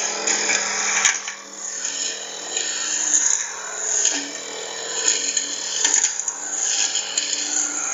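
Firman four-stroke backpack brush cutter running steadily as its cutting head sweeps through low weeds, the sound rising and falling about once a second with the swings.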